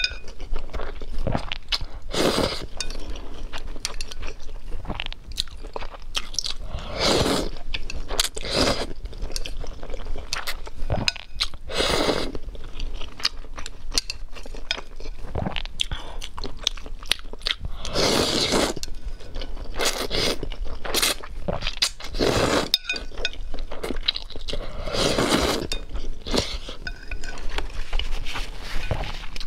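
Instant ramen noodles in spicy sauce being slurped up in a series of loud, second-long pulls a few seconds apart, with chewing and small clicks of the mouth in between.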